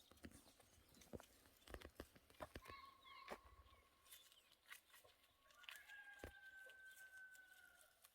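Faint, distant rooster crowing twice in long held calls, the second slightly higher and falling a little at its end, with scattered soft clicks.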